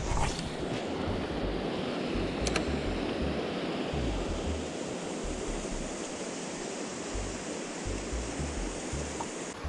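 Steady rush of river water from a nearby waterfall, with wind buffeting the microphone in low gusts and a single faint click about two and a half seconds in.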